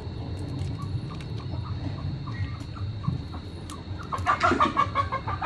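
A chicken clucking in a quick run of short calls near the end, over a low steady rumble.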